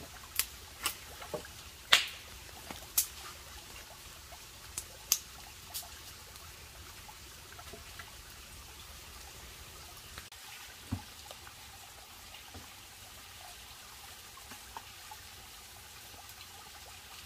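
Wood fire crackling, with a string of sharp pops in the first six seconds and only a few after, over the steady trickle of a stream.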